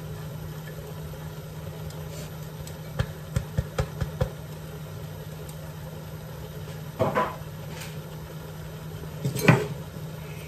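Cheese being grated on a stainless steel box grater: a quick run of short scraping strokes a few seconds in, then two louder knocks as the grater and cheese block are handled, the second the loudest. A steady low hum runs underneath.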